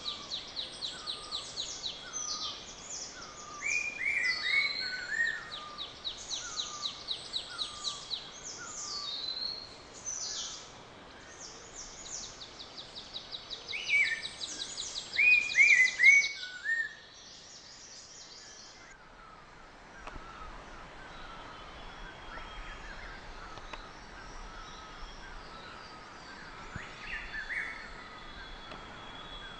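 Several forest birds calling together, mixing rapid runs of high repeated notes with short falling whistles. About two-thirds of the way through the chorus thins to fainter, scattered calls over a soft background hiss.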